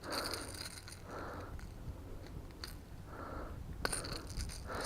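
Faint close handling sounds: soft rustles about once a second and a few small clicks, most of them near the end.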